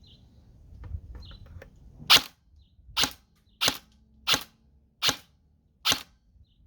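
Electric airsoft gun firing six single semi-auto shots, spaced about 0.7 s apart, starting about two seconds in, after a few faint clicks. Its gearbox has just been reshimmed.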